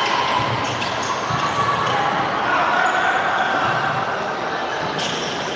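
Futsal game sounds in a large hall: the ball being kicked and bouncing on the court, with distant calls and crowd chatter echoing.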